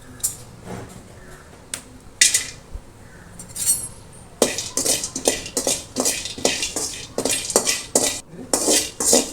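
Metal spoon stirring and scraping broken cinnamon-stick pieces as they dry-roast in a pan. A few scattered clinks come first, then from about four seconds in a quick run of scraping strokes, about four a second.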